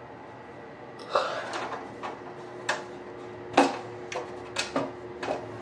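An irregular string of sharp clicks and knocks, starting about a second in, with one louder knock in the middle, over a faint steady hum.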